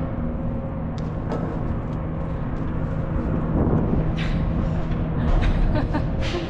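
Truck diesel engine idling steadily, with a few scattered knocks and scrapes in the empty trailer: a shovel scraping the floor and footsteps on its wooden boards.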